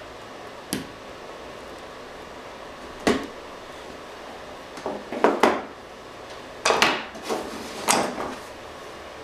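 Wire strippers and needle-nose pliers clicking and knocking on a plywood layout board as the wire is stripped and the tools are handled and set down: a single click, a sharper knock about three seconds in, then bunches of clattering knocks between about five and eight seconds in.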